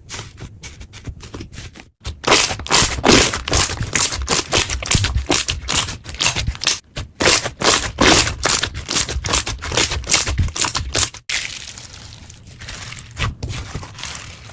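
Slime being squeezed and pressed by hand, a dense run of sticky crackling clicks and pops. It jumps much louder about two seconds in and drops back quieter after a sudden break near the end.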